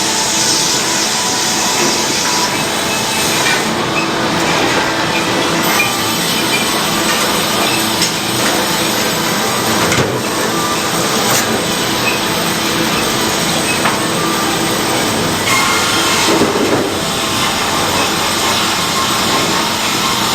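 Sawmill running, its saw cutting through a log to make 2x4 lumber: a loud, steady mechanical noise without pause.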